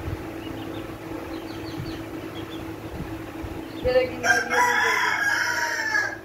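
A rooster crows once, about four seconds in, a loud pitched call lasting about two seconds. Before it, faint short high peeps over a steady low hum.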